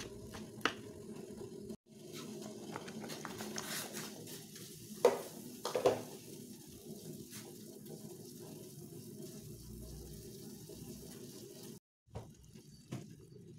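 A knife clicking against a wooden cutting board while slicing red chilies, then a steady low rush from a steel pot of water heating on the stove, with carrot slices splashing into the water twice, about five and six seconds in.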